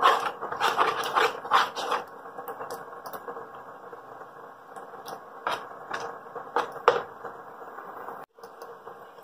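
Silicone spatula stirring and scraping thick, dough-like milk-powder stuffing around a non-stick pan, in short irregular strokes, thick in the first two seconds and a few more later. A faint steady hum from the running induction cooktop sits underneath.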